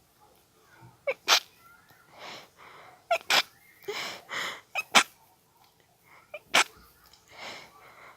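A person's stifled sneezes in a sneezing fit brought on by allergies: about four held-in sneezes, each a quick sharp double burst, with breathy sounds between them.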